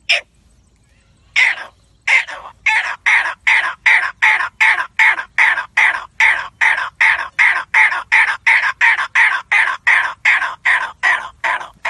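A man imitating the grey partridge's (teetar's) territorial call by voice, the call a breeding bird gives to warn off another grey partridge from its territory. A couple of single calls, then from about two seconds in a fast, even run of loud calls, about three a second.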